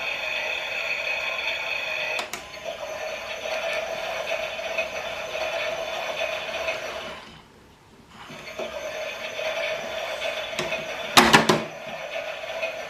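Small electric motor of a Klein toy Miele washing machine whirring steadily as it turns the drum. It stops for about a second a little past halfway, then starts again. A few sharp clicks come near the end.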